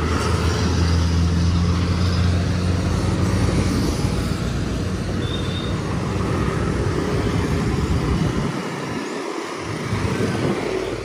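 Busy road traffic: vehicle engines and tyre noise. A steady low engine hum stands out for the first few seconds.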